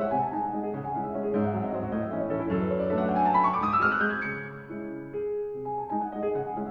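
Background piano music, with a quick rising run of notes about halfway through.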